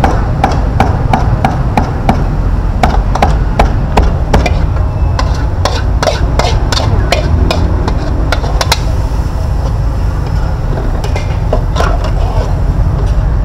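Rapid sharp knocks, about three a second, stop around nine seconds in, with a couple more near the end, over a steady low rumble.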